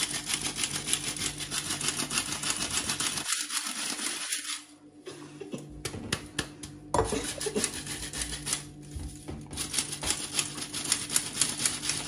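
Squeeze-handle stainless steel flour sifter clicking rapidly as its handle is worked, sifting dry cake ingredients. The clicking stops for a second or two about five seconds in, then resumes.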